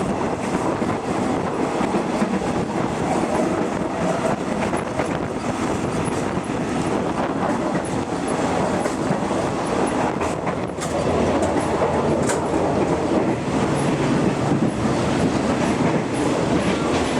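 Running noise inside a moving State Railway of Thailand non-air-conditioned passenger coach: steady rumble and clatter of the wheels on the rails, growing a little louder about eleven seconds in.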